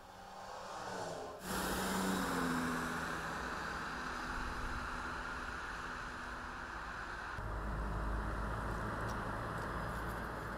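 Street traffic: a vehicle approaches and passes, its engine note falling, then steady road and tyre noise. The sound shifts abruptly a second and a half in and again near the end.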